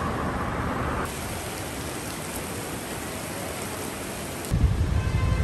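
Heavy rain pouring onto wet pavement, a steady even hiss. Near the end a louder low rumble cuts in suddenly.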